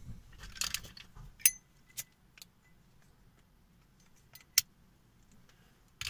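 A few sharp metallic clicks and clinks, one ringing briefly, with soft rustling in the first second: small metal objects being handled.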